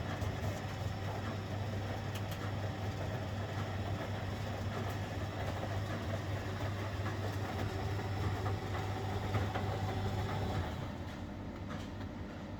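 1971 Constructa Garant 491 washing machine running its wash cycle: the drum motor hums steadily while the drum turns, with scattered knocks from the load, and the motor stops about ten seconds in.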